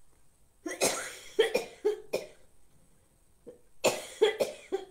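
A woman coughing in two fits of several sharp coughs each, the second fit partly muffled as she covers her mouth.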